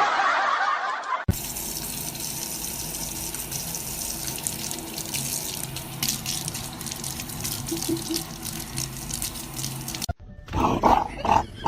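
Water running and splashing steadily, starting abruptly a little over a second in after a brief different sound, and cutting off near the end.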